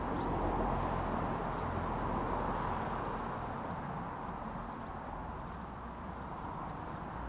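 Steady outdoor background noise like the hum of distant road traffic, with no distinct events.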